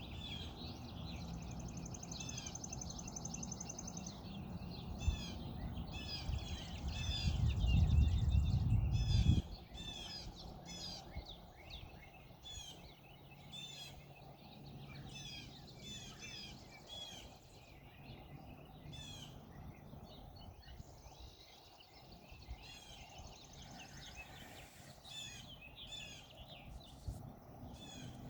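Small birds chirping, many short repeated chirps throughout. A low rumble builds and is loudest around eight seconds in, then cuts off abruptly.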